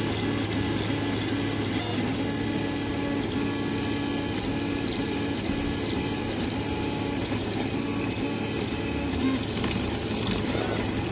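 3D printer running a print: stepper motors humming in short tones that change pitch with each move, over a steady fan hiss.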